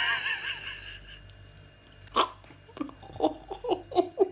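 A woman's high, wavering whimper trails off, then after a single sharp click about two seconds in comes a run of short, muffled vocal bursts, roughly three a second, from behind a hand held over her mouth. This is a disgusted reaction to the taste of black licorice candy.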